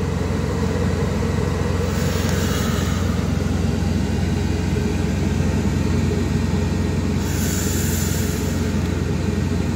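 Steady low rumble of running machinery heard inside a semi truck's sleeper cab. Two soft hissing exhalations come about two and seven seconds in.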